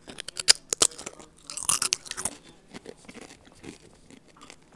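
Close-up crunching and chewing of a red spicy tortilla chip held up to an earbud microphone: sharp crisp cracks as it is bitten in the first second, a louder crunch about two seconds in, then softer chewing.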